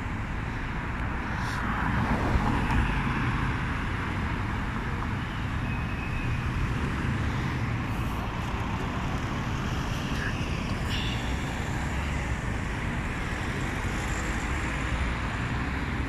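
Road traffic: cars passing on a multi-lane road, giving a steady rumble of engines and tyres that swells a little about two seconds in.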